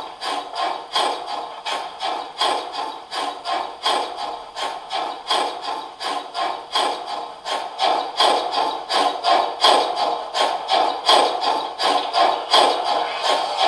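Sound decoder (ESU LokSound 5XL) in a gauge 1 brass model of a DB class 64 steam locomotive playing steam-exhaust chuffs in a steady rhythm as the model runs on a rolling-road test stand. The chuffs grow louder about halfway through.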